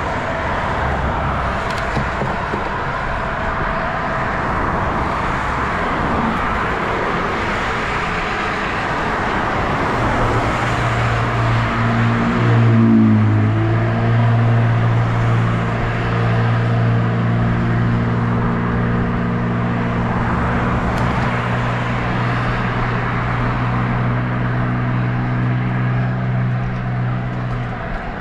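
Road and traffic noise. From about ten seconds in, the steady low engine hum of a motor vehicle close by joins, wavers briefly in pitch, then holds steady for the rest.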